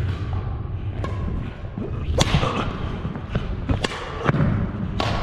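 Badminton rally: several sharp racket hits on the shuttlecock, roughly one a second and loudest about two seconds in, over footfalls and shuffling on a hardwood court.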